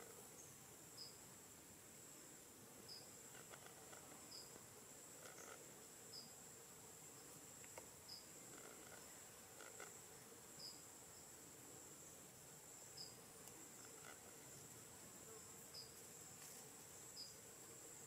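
Faint, steady, high insect drone with a short high chirp repeating about every second and a half.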